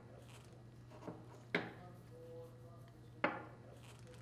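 Small metal clicks as a steel pick works O-rings off a steel valve plug and stuffing box: three sharp clicks, the second trailing a brief faint ring. A steady low hum runs underneath.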